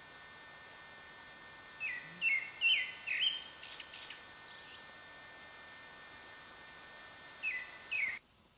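A bird calling: a quick run of four short down-slurred notes about two seconds in, a few thin high notes just after, and two more down-slurred notes near the end, over a steady background hiss.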